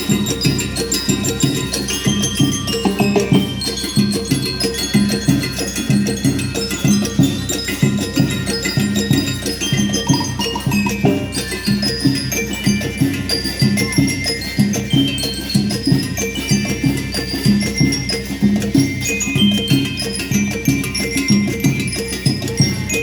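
School rhythm band playing: metal bell-lyres ring out a melody in high, held notes over a steady, even beat of drums.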